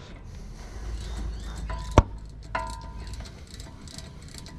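Steel hand tools on a Jeep Wrangler JK's front brake caliper: one sharp metallic clank about two seconds in with a brief ring, then light ticking of a ratchet turning a caliper bolt.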